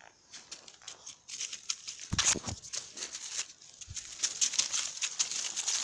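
Dry leaves and twigs crackling and rustling underfoot as dogs and a person walk a leaf-littered dirt path, with many quick crunches and a loud bump about two seconds in.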